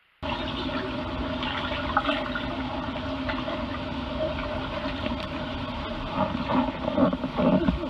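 Rushing, bubbling water picked up by a camera at and under the water as a swimmer moves, with a steady hum underneath. It starts suddenly right at the beginning and grows choppier near the end.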